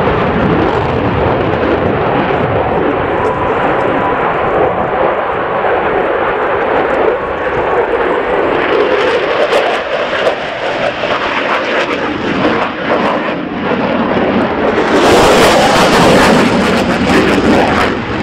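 Jet engine noise of a USAF Thunderbirds F-16 fighter in display flight: a loud, steady rushing that grows louder and hissier about fifteen seconds in.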